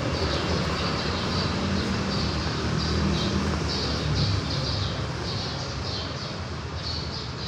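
Birds chirping, many short, quick calls, over a steady low rumble that eases off after about four and a half seconds.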